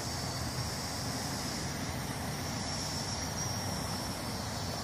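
Faint, thin high whine of a small Model 8807 foldable quadcopter's propellers as it flies high overhead, wavering slightly in pitch, over a steady low rumble of outdoor background noise.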